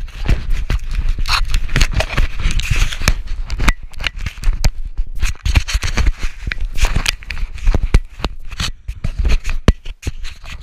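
Handling noise on an action camera: fingers and clothing rubbing and scraping against the camera and its mount, with many irregular clicks and knocks.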